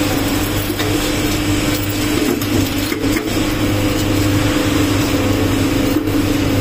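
Single-shaft battery shredder running: a loud, even mechanical hum with a low drone and a higher steady tone underneath.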